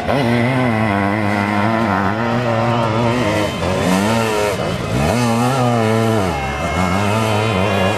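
Sidecar motocross outfit's engine revving hard. Its pitch drops and climbs again several times as the throttle is shut and opened through the downhill and the corner.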